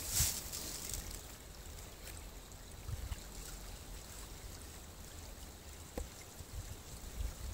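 Small woodland creek trickling over rocks, with wind gusting on the microphone. A short rustle right at the start and a few faint handling clicks about three and six seconds in.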